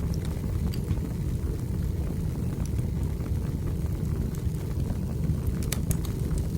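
Wood fire burning in a fireplace: a steady low rumble with scattered small crackles and pops, and a quick run of pops near the end.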